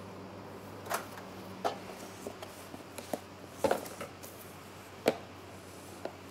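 A pastry brush being worked in a plastic tub of butter: scattered light knocks and clicks, about half a dozen, the sharpest about five seconds in, over a steady low hum.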